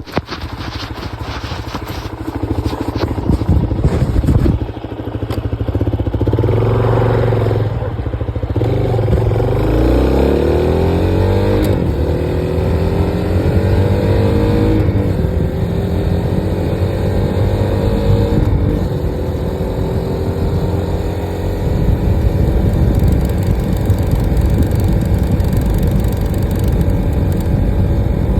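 Suzuki DR-Z400S single-cylinder four-stroke engine running, then pulling away and accelerating up through several gears before settling into a steady cruise. A single tick comes on the shift out of first gear, and a more pronounced tick comes during the cruise. The tick is absent at idle and under brisk acceleration, and loudest when cruising in the higher gears.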